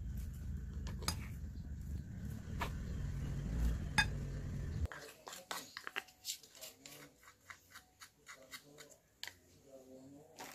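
A wooden spoon scraping and knocking mashed potato out of a metal mesh strainer into a ceramic bowl, over a low rumble. About five seconds in the rumble stops abruptly and a quick run of light clicks and taps against the bowl follows.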